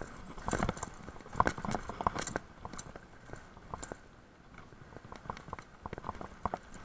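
Mountain bike riding over a rocky trail: tyres crunching and knocking over stones, in irregular clicks and knocks that come thickest in the first couple of seconds and again near the end.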